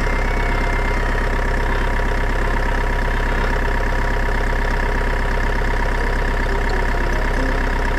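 Heavy truck engine idling steadily, a low even rumble with a fine rapid pulse. It is an edited-in engine sound effect standing in for a toy cement mixer truck.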